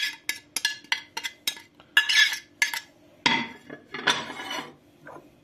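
A metal spoon tapping and scraping against a plastic tray and a ceramic bowl, a quick run of sharp clicks, then two longer scraping sounds about three and four seconds in.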